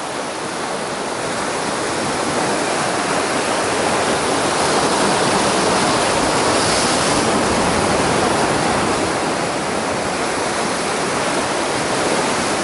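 Sea surf washing and breaking over shoreline rocks close by: a loud, steady rushing that builds over the first few seconds and eases slightly later on.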